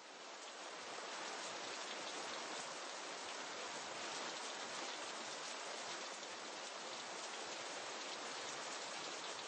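Steady hiss of rain, swelling up over the first second and then holding even.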